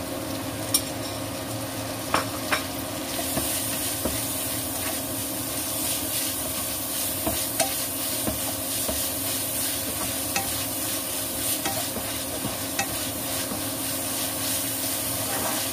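Sliced beef sizzling in hot oil in a wok with fried chili-shallot-garlic paste, stirred with a spatula that knocks and scrapes against the pan now and then. The sizzle grows stronger about three seconds in.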